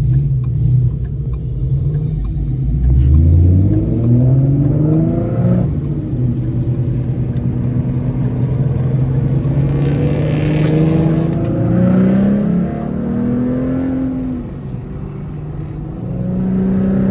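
Ford Mustang 3.7-litre V6 running through a Roush axle-back exhaust with BBK shorty headers, accelerating. The engine pitch climbs early on, holds steady while cruising, then rises and falls a couple more times and settles at a higher note near the end.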